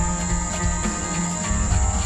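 Steady high-pitched chirring of insects, over background music.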